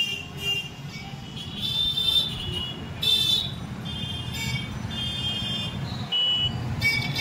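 Busy street traffic: engines of motorbikes and auto-rickshaws running under many short horn honks, some brief beeps and some held for about a second, overlapping.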